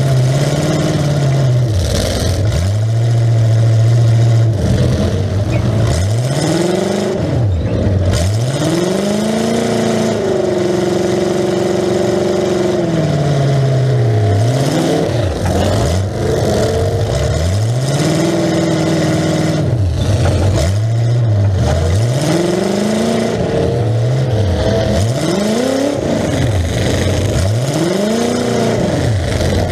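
Demolition derby car's carbureted engine barking through open upright exhaust stacks, revving up and falling back over and over, every second or few, as the car manoeuvres.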